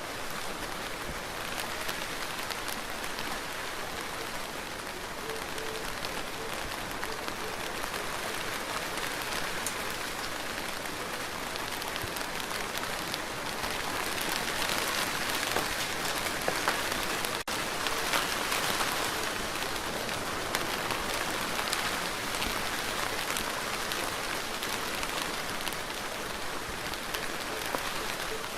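Steady rain falling, a dense hiss of drops pattering on a surface that swells slightly in the middle. The sound drops out for a split second about two-thirds of the way through.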